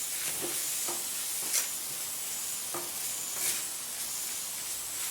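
Sliced onions and coconut pieces sizzling in hot oil in a pan while being stirred so they don't stick, with a few scraping strokes spread through the sizzle. The onions are sautéing towards browned.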